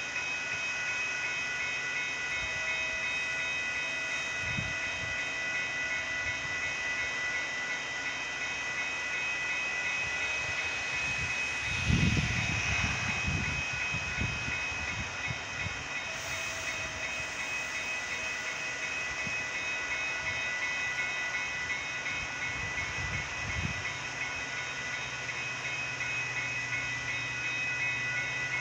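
Metra bilevel commuter train rolling past a grade crossing, its wheels rumbling and clacking over the rails, with a loud run of clacks about twelve seconds in. The crossing's warning bell rings steadily over it.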